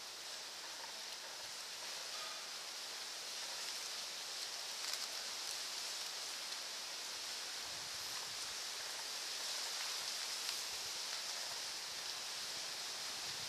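Steady outdoor background hiss with a few faint clicks.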